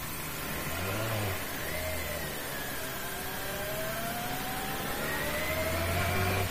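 Suzuki Bandit 650S inline-four engine pulling away at low speed. The revs rise briefly about a second in, then climb steadily over the last few seconds.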